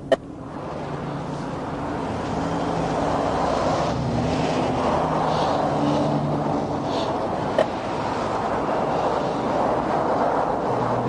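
Steady rush of passing interstate traffic, tyre and engine noise building slowly over the first few seconds. A sharp click right at the start and another about seven and a half seconds in.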